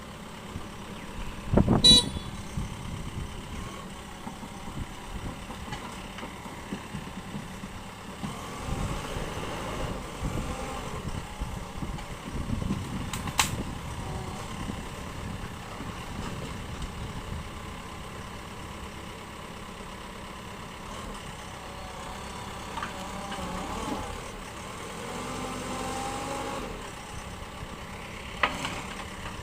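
JCB 3DX backhoe loader's diesel engine running as the machine works, swelling and easing, with a few sharp knocks, the loudest about two seconds in.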